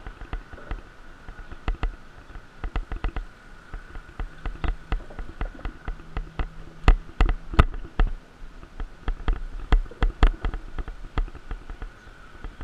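A mountain bike rattling over a rough, rutted dirt track, with many irregular knocks and clattering jolts, loudest in the middle. A steady high buzz runs underneath.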